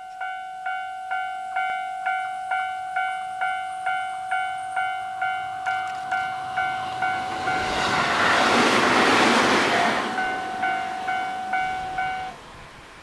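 A Japanese railway level-crossing warning bell clanging at about two strokes a second, stopping near the end. A JR Shikoku suburban electric train passes from about 7.5 s, and its wheels on the rails make a rushing noise that is loudest around 9 s.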